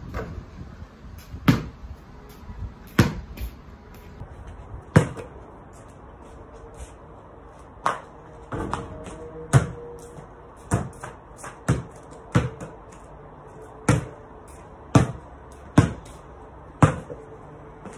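A basketball bouncing on patio paving slabs: about a dozen single sharp bounces, one to two seconds apart at first and about one a second in the second half.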